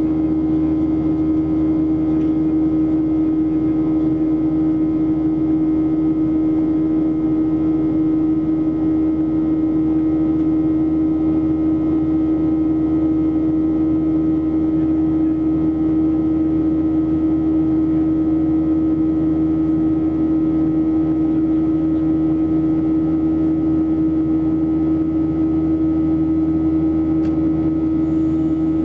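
Steady in-flight cabin drone of a Boeing 737-800 heard from a window seat beside the wing: the hum of its CFM56-7B turbofan engines, with a strong constant tone over the rush of air, unchanging throughout.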